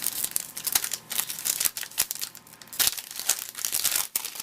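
Foil wrapper of a trading card pack crinkling and tearing as it is opened, in quick irregular crackles.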